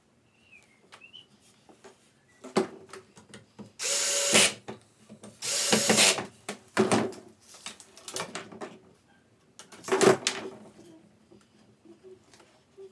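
Cordless drill driving pocket-hole screws into pine boards in several short bursts of motor whine, with small knocks of wood and screws being handled in between.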